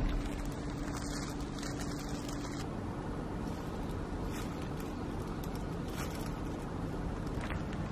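Steady low rumbling background noise, with a faint steady hum that stops about two and a half seconds in and a few faint light clicks.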